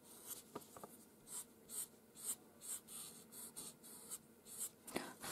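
Pastel pencil scratching faintly across paper in short, quick strokes, about two a second, as individual fur hairs are drawn.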